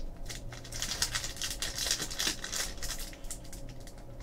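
Trading cards and their packaging being handled: an irregular run of short rustles, scrapes and light clicks.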